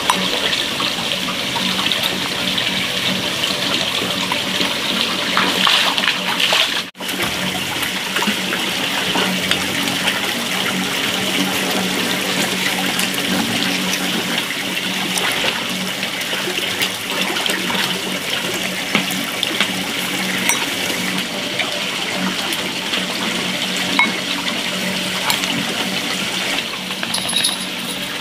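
Steady running water, a continuous rushing hiss under a low steady hum, with a brief dropout about seven seconds in.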